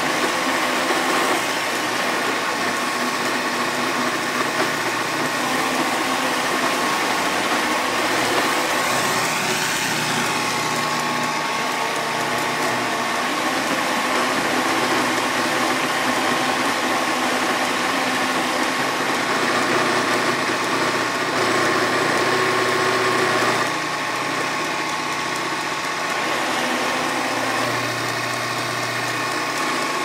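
iRobot Roomba S9+ robot vacuum running: a steady motor whine over a whirring hiss. The sound drops a little in level about three-quarters of the way through.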